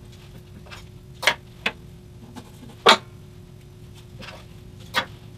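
Four sharp clicks and snaps from hands working black electrical tape onto a bandsaw's power cord, the loudest about three seconds in, over a faint steady hum.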